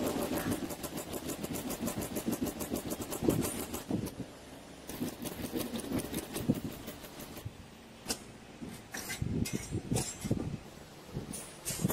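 Multi-head PVC badge dispensing machine running, with fast even clicking at about eight clicks a second that thins out after a few seconds. From about eight seconds in there are scattered separate knocks and handling sounds.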